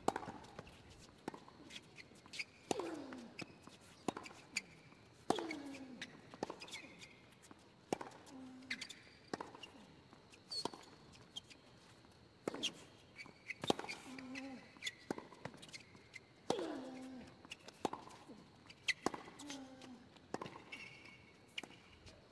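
Tennis rally on a hard court: the ball cracks off the rackets and bounces, with short grunts that drop in pitch on many of the shots. Shoes squeak briefly on the court surface between strokes.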